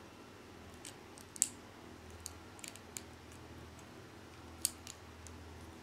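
Small plastic LEGO pieces clicking and snapping together as a model is put together by hand: a handful of short, sharp clicks, the loudest about a second and a half in and another sharp one near the end.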